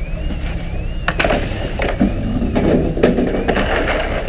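Fishing boat's engine running with a steady low rumble, with a high wavering tone over it and a string of sharp knocks and clatter on deck starting about a second in.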